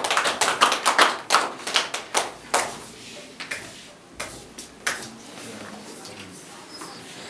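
Audience applause: many hands clapping, thinning out after about two and a half seconds to a few scattered claps.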